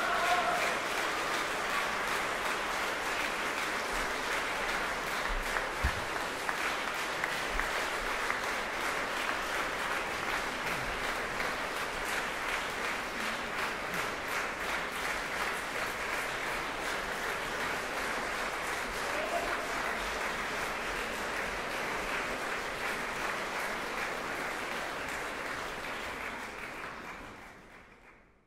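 Concert audience applauding steadily, a dense sound of many hands clapping, which fades out near the end.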